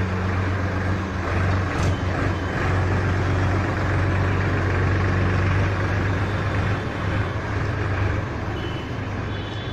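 Diesel tractor engine running steadily under way, a low drone that gets somewhat quieter in the last couple of seconds.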